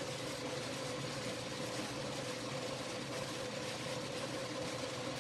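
Metal lathe running steadily with a constant mid-pitched hum as the tool turns down the diameter of an aluminium part.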